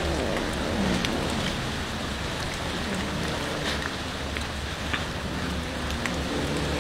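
Many cats chewing raw fish fillets from a metal tray together, a steady mix of chewing noise with frequent small clicks over a low steady hum.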